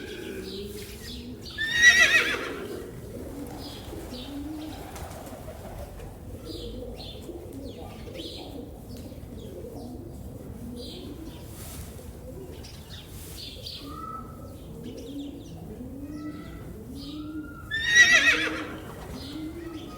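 A horse whinnies twice, loud and quavering, a couple of seconds in and again near the end. Between the whinnies, doves coo softly and repeatedly, with a few small-bird chirps.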